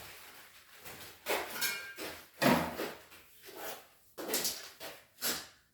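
Polyurethane expanding foam being sprayed from a can into the gap around a newly fitted window frame, in several short, irregular hissing, sputtering bursts.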